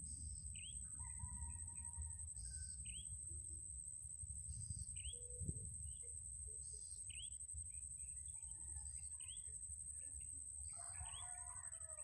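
Birds giving short chirps, repeated about every two seconds, over the steady high-pitched drone of insects and a constant low rumble.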